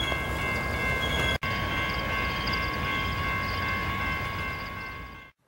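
Passenger train cars rolling along the rails, a steady rumble with high steady ringing tones above it. It cuts off abruptly near the end.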